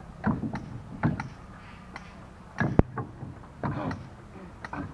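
Quarried stone blocks being loaded by hand onto a truck bed, clacking and knocking against the stones already stacked there. There are about five irregular knocks, the sharpest and loudest about three seconds in.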